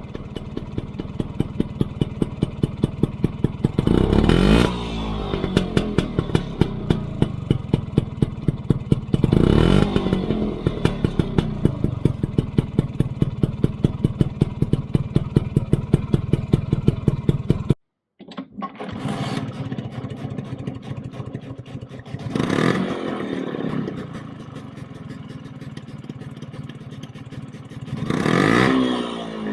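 Vespa PX's two-stroke single-cylinder engine idling with an even, pulsing beat through an aftermarket exhaust, blipped briefly to higher revs twice. After a sudden cut, a quieter take idles and is blipped three more times, heard through the other exhaust in a comparison of the two.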